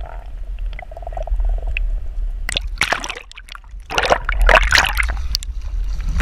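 Muffled low rumble of water around a submerged camera, then loud splashing and sloshing in bursts, about two and a half and four seconds in, as the camera breaks the surface and a hooked bonito is pulled up thrashing at the boat's side.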